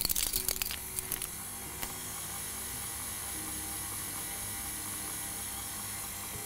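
KitchenAid stand mixer running steadily, its paddle beating cake batter. A few light clicks come in the first second or so.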